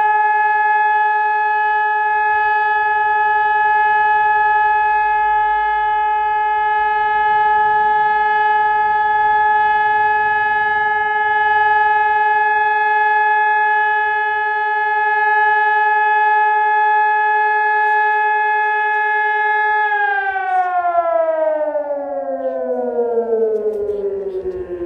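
Hörmann ECI-DT 1200 electronic warning siren sounding a loud steady tone on a test alarm. About twenty seconds in, the pitch glides steadily down as the signal ends.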